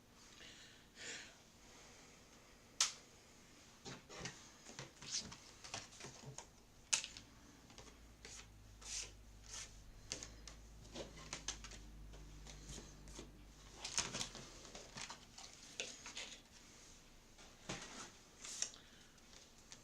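A steel cutting die and a freshly die-cut watercolour-paper panel being handled on a craft table: irregular light clicks, taps and paper rustles as the cut piece is freed from the die. A faint low hum sits under the middle stretch.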